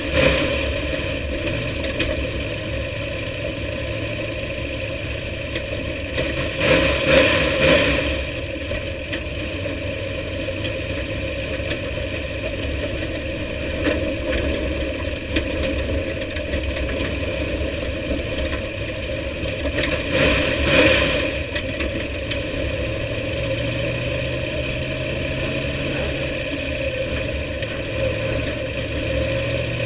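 Dirt-track race car engine heard from onboard, running steadily at low speed, with two short bursts of throttle: one about seven seconds in and one about twenty-one seconds in.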